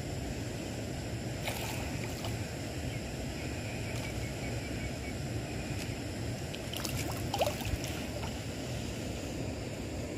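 Steady wind rumble on the microphone beside open water, with a few brief sharp sounds, the loudest about seven seconds in.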